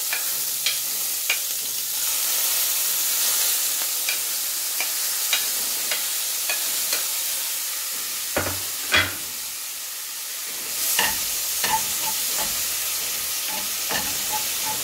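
Chopped onion, green chilli and tomato sizzling steadily in hot oil in a frying pan on a gas burner. Scattered clicks and two louder knocks come about eight and nine seconds in, and a metal spoon clicks and scrapes against the pan as the vegetables are stirred near the end.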